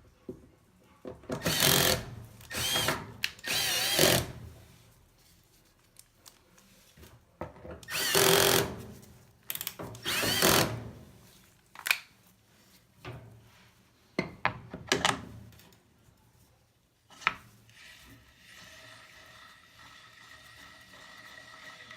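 Power drill running in short bursts of about a second or less, about eight in all, its motor pitch rising and falling within the longer ones.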